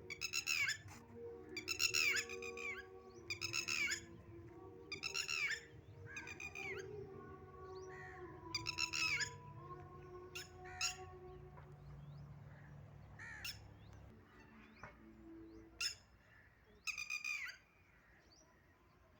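A bird giving a series of loud, harsh squawking calls, each under a second long and falling in pitch, every second or so and then more sparsely. Soft steady tones sound underneath and fade out after about fifteen seconds.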